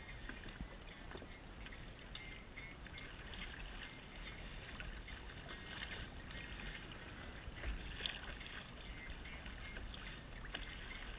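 Seawater trickling and splashing off a wet rope as it is hauled hand over hand into a kayak, with a couple of slightly louder splashes about eight seconds in.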